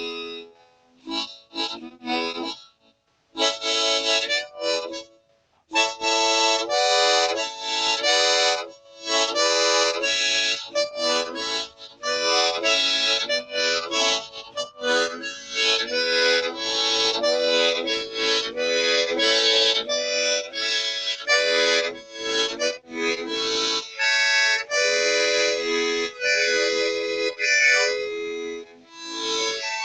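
Instrumental music on a free-reed instrument, harmonica-like, playing chords in short, quickly changing notes. There are a few brief breaks in the first several seconds, then it plays on continuously.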